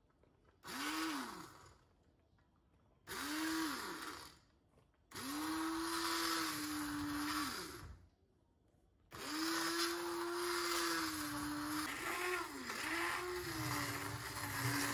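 Sinbo stick (immersion) blender pureeing chopped tomatoes in a steel pot. Two short pulses, each spinning up and down, then a run of about three seconds. From about nine seconds in it runs on without stopping, its pitch wavering as it works.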